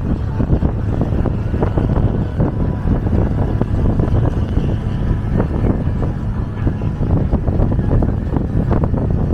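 Wind buffeting the microphone over the steady low rumble of a river tourist boat's engine, heard from the open upper deck while the boat is under way.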